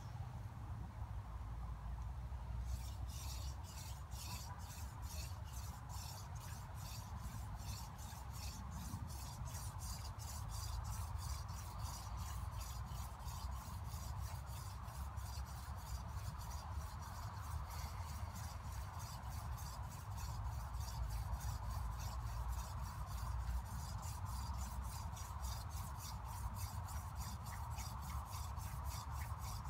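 Hand drill for friction fire: a wooden spindle spun back and forth between the palms, its tip grinding in a wooden hearth board, making a rapid, regular rasping rub with each stroke. The drilling starts a few seconds in and keeps an even pace.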